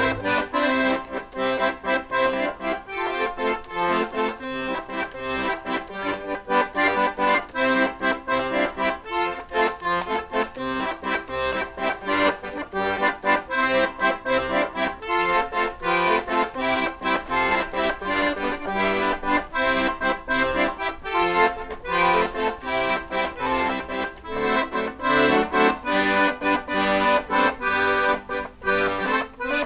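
Instrumental background music with a quick, steady beat.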